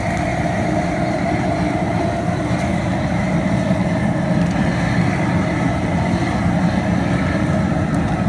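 Propane burner under a crawfish-boil pot running with a steady low roar, the seasoned water in the pot at a rolling boil.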